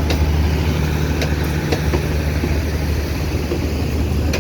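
Train running with a steady low diesel hum over a rumble, with scattered sharp clicks and knocks.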